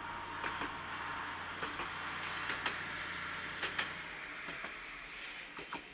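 KiHa 40 diesel railcars running, with a steady low engine drone and scattered clicks and knocks from the wheels on the rails. About four seconds in the drone drops away and the sound fades.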